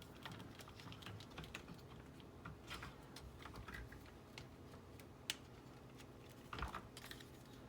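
Faint clicks and taps of a plastic action figure being fitted onto a plastic toy horse. One sharper click comes a little after five seconds in, and a short cluster of louder handling noise follows about a second later.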